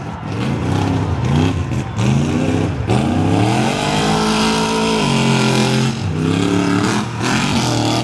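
Engine of a stripped-down pickup arena truck revving hard as it spins in the dirt: several quick rises in pitch, then held high for a few seconds before dropping back near the end.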